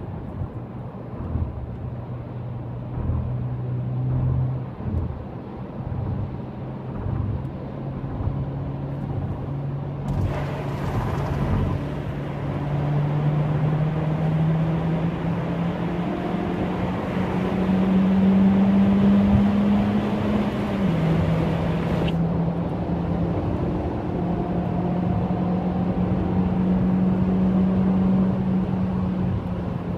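Honda Civic FB7's engine and aftermarket exhaust, heard from inside the cabin while the car is driven at speed. The engine note climbs steadily, drops once about two-thirds of the way through as the car shifts up, then holds. In the middle stretch, road and tyre noise grows louder and brighter as it echoes in a tunnel.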